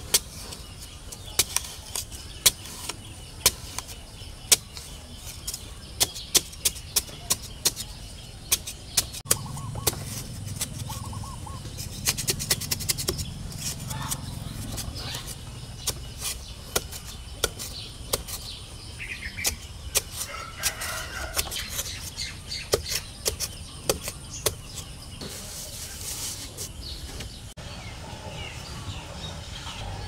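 A hand digging tool chopping into dry, sandy soil in repeated sharp knocks, about one a second at first, with a quick run of strikes about twelve seconds in. Birds call faintly in the background.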